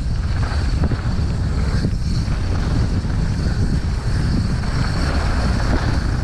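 Steady wind rumble buffeting the microphone of a camera on a moving mountain bike, with tyre and trail noise underneath.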